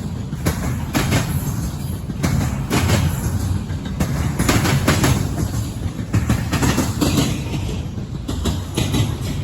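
Double-stack freight train rolling past: a steady low rumble of the cars with irregular clacks of wheels over rail joints.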